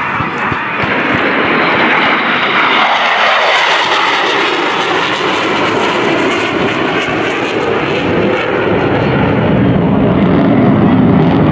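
Two Boeing F/A-18 Super Hornets making a low, fast pass, their twin General Electric F414 turbofans loud. The pitch falls as they go by, leaving a deep rumble near the end.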